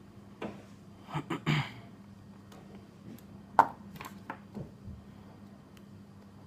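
Lock pick and tension wrench working the pins of a Yale euro cylinder lock: scattered small metallic clicks and scrapes, a cluster of them about a second in and one sharp click about three and a half seconds in, over a faint steady hum.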